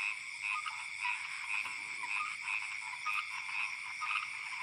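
Frogs calling in a steady chorus, short calls repeating over and over.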